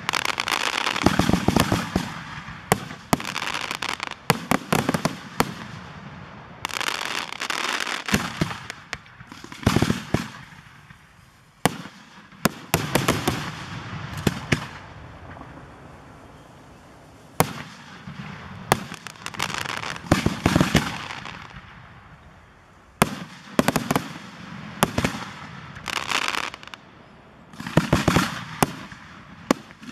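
Aerial firework shells bursting overhead: many sharp bangs at irregular intervals, most trailed by a longer fading rumble. The bangs thin out and go quieter for a few seconds midway, then pick up again near the end.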